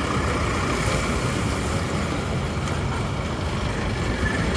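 Busy road traffic heard from a moving rickshaw: a steady mix of passing vehicles with a continuous low rumble and no single sound standing out.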